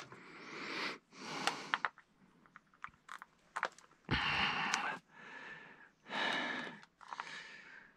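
A person breathing audibly close to the microphone, about six breaths in and out, with a few light clicks in the middle from handling a multimeter's test probes on the cell terminals.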